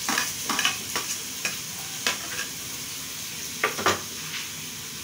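Chopped onion sizzling and frying in hot oil in a wok, being browned until it takes some colour. Sharp scrapes and clinks of a spoon and spatula against the plate and pan come a handful of times, with a close pair near the end.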